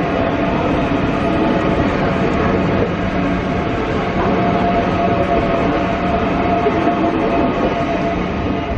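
Electric suburban multiple-unit train pulling out of the platform close by: a steady loud rush of wheels and running gear with a steady motor hum through it.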